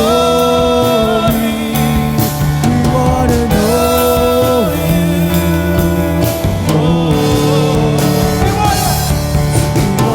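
Praise band and singers performing a contemporary Christian worship song. Long held sung notes step from pitch to pitch over steady bass, keyboard and drum kit.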